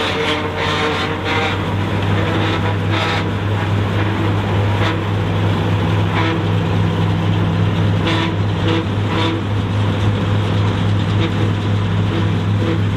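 Ford TW20's six-cylinder diesel engine running steadily under load, driving a Taarup forage harvester that is chopping grass and blowing it into a trailer. Over the engine's drone come irregular short rushes of noise from the harvester's cutter and blower.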